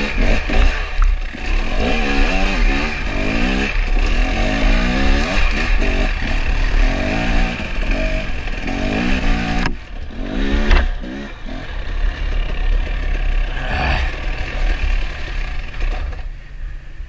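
Husqvarna TX300 single-cylinder two-stroke dirt bike engine revving up and down as it is ridden over a rough off-road trail, with a steady low rumble of wind on the helmet camera's microphone. The engine eases off briefly about ten seconds in and then picks up again.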